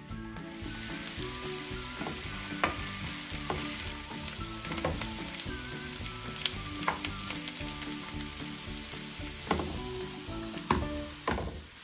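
Chopped onion sizzling in hot oil in a nonstick frying pan while it is stirred with a wooden spoon, with several sharp knocks of the spoon against the pan.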